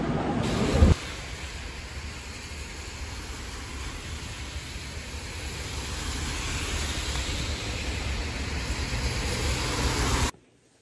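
Subway train rumble for about the first second, ending in a knock; then the steady hiss of rain on a wet street, slowly growing louder until it cuts off suddenly near the end.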